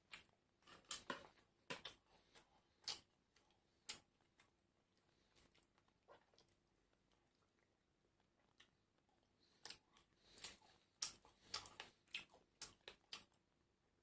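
Crunchy food being bitten and chewed close to the microphone: sharp, crisp crunches in two flurries, one over the first few seconds and another from about ten seconds in, with a quieter stretch between.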